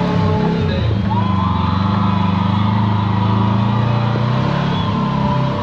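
Kawasaki Teryx KRX4 1000 side-by-side's 999 cc parallel-twin engine running steadily on a trail. Its pitch shifts about a second in.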